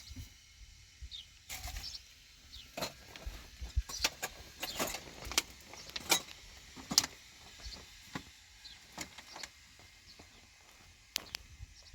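Irregular sharp clicks and light knocks, scattered and bunched most closely in the middle, over a faint background hiss.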